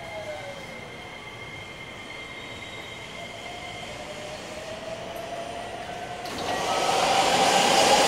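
Running sound of a JR West 321 series train with a Hitachi IGBT VVVF inverter: the inverter and traction-motor whine falls in pitch, then rises steadily as the train picks up speed. About six seconds in, the rumble of wheels and rails suddenly grows much louder.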